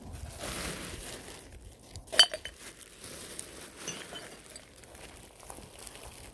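A single sharp glass clink about two seconds in, with a brief ringing: glass rubbish knocking together inside a plastic trash bag being carried. Around it, the bag rustles and steps crunch on dry pine needles.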